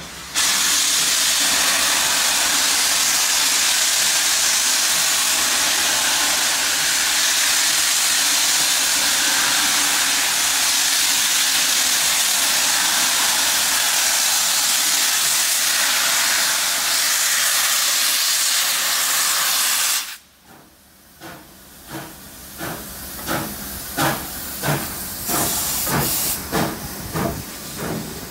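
Steam locomotive 3801, an NSW C38 class Pacific, blowing off a loud steady hiss of steam low at the front, which cuts off suddenly about two-thirds of the way through. Then the exhaust starts chuffing, about two beats a second and quickening, as the locomotive starts away.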